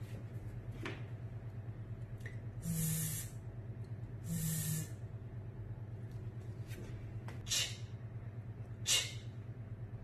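A woman's voice saying pure phonics sounds: two half-second buzzing hisses like a drawn-out "zzz" about three and four and a half seconds in, then two short hissed sounds like "ch" near the end, over a steady low hum.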